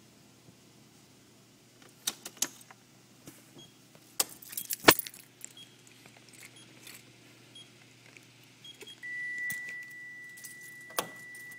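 Car keys jangling with a scatter of sharp clicks, with the engine silent. About nine seconds in a steady high-pitched electronic tone starts and keeps sounding.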